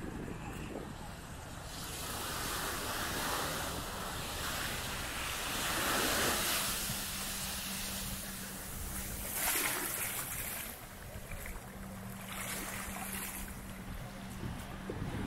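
Sea surf washing onto a beach, swelling and fading several times, over a low wind rumble on the microphone. A faint steady hum comes in about halfway through.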